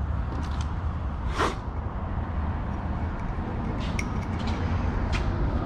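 Scattered clicks and knocks of parts and hand tools being handled during an oil change, the sharpest about a second and a half in, over a steady low rumble.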